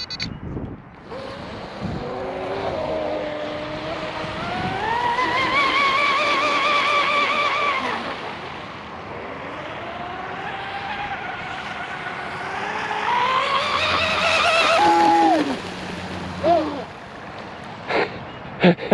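A ProBoat Blackjack 24 RC boat's brushless motor and flex-shaft drive on 6S whining as the throttle is worked, the pitch climbing twice and falling back, over the hiss of the hull on the water. The whine drops away about fifteen seconds in, and a few sharp clicks come near the end.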